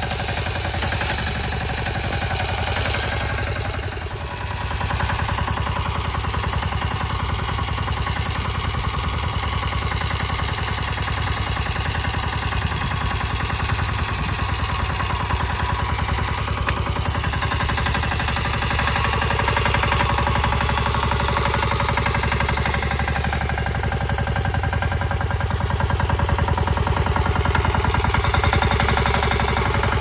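An engine running steadily with an even, fast firing beat, dipping briefly about four seconds in and running a little louder later on.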